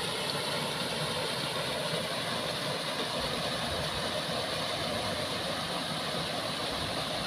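Water rushing steadily over a low concrete weir, an even unbroken roar of spilling, foaming water.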